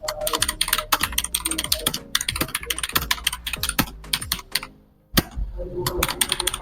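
Fast typing on the AULA F2058 mechanical gaming keyboard: a dense run of key clicks that pauses briefly just before five seconds in, then resumes with a hard keystroke.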